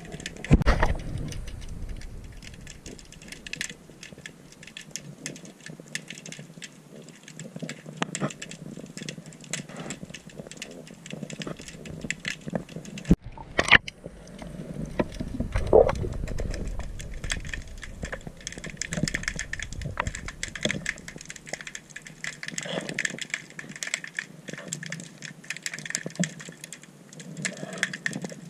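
Underwater recording beside a boat's propeller: constant crackling clicks, with a few muffled low thumps and swishes of water as the camera is moved about.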